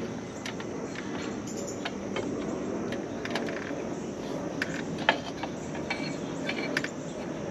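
Light, irregular metallic clicks and clinks as a drum brake shoe and its spring hardware are worked into place against the steel backing plate of a Jeep Wrangler TJ rear brake, the sharpest about five seconds in. A steady background hiss runs underneath.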